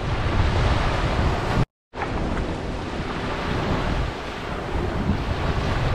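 Small waves washing onto a sandy beach, a steady rushing surf with wind buffeting the microphone. The sound cuts out completely for a split second a little under two seconds in, then resumes.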